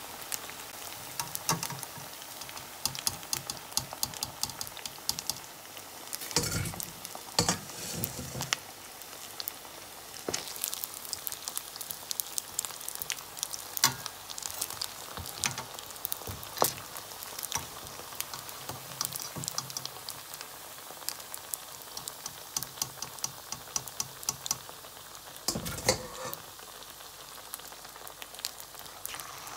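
Potato pieces deep-frying in hot oil: a steady sizzle full of quick crackles and pops. A few louder knocks stand out, twice around the middle and once near the end.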